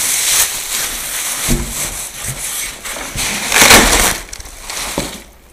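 Cardboard boxes and foam packing being handled and shifted: rough rustling and scraping, with a knock about one and a half seconds in and the loudest stretch a little before four seconds in.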